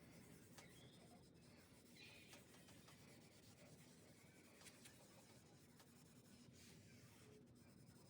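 Faint, steady rubbing as stain is wiped onto the wooden side table's surface.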